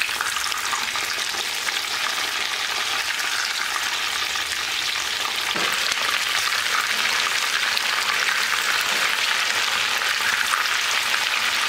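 Breaded chicken skewers shallow-frying in hot oil in a frying pan: a steady, dense sizzle that grows a little louder after about six seconds.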